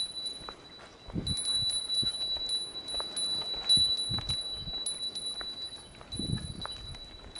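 A small pilgrim's bell ringing with a high, steady tone, struck again about twice a second in time with walking, with a few dull thumps underneath.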